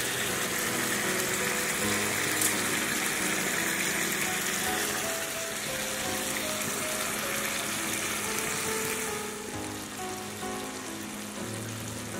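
Chicken curry bubbling and sizzling in a pan, a steady hiss that turns fainter about nine seconds in, under soft background music.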